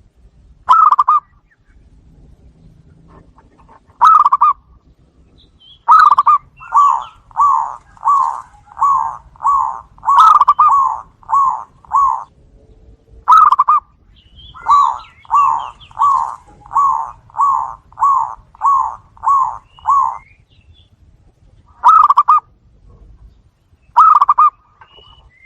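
Zebra doves (perkutut) calling back and forth with loud, soft-toned coos. Single notes alternate with two rapid staccato runs of about ten coos each, at roughly two a second.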